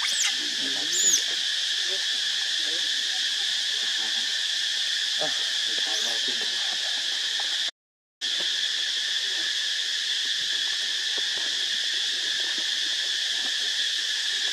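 Steady, shrill chorus of insects droning in a few high, unbroken bands. It cuts out completely for about half a second near the middle. A couple of short high chirps come about a second in.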